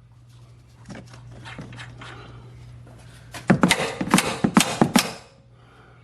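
Tools and loose suspension parts clanking during disassembly: a few light knocks, then a quick run of sharp, louder clanks about three and a half seconds in.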